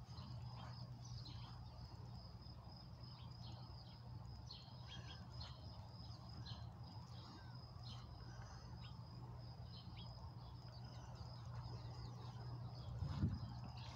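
Backyard ambience: birds chirping in short, scattered calls over a steady high-pitched tone and a low steady hum, with a brief louder low bump near the end.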